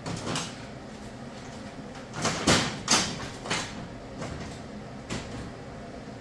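Steel diamond plate being handled and worked, giving a series of irregular metallic clanks and knocks. A few of the loudest come close together around the middle.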